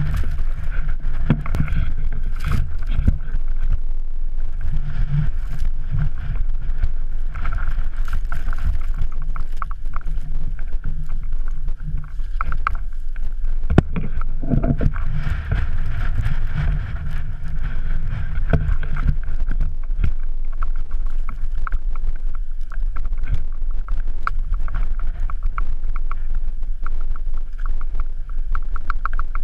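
Wind buffeting a small action-camera microphone as a steady low rumble, with frequent short crunches and clicks of boots and poles on snow and rock.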